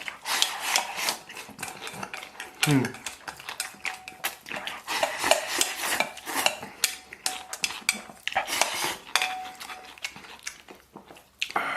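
Eating utensils clinking and scraping against a bowl in quick, irregular strokes while the last of the rice is scooped up.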